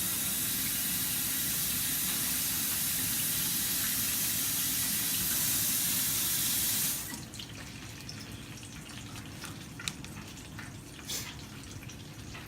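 Kitchen tap running into the sink as a stalk of fresh broccoli is rinsed under it. The water is turned off about seven seconds in, leaving a few small clicks and splashes as the wet broccoli is handled.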